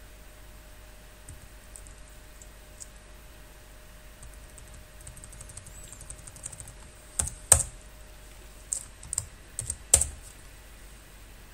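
Typing on a computer keyboard. Scattered light key clicks give way to a quick run of keystrokes, then a handful of harder key presses, the loudest about seven and a half seconds in.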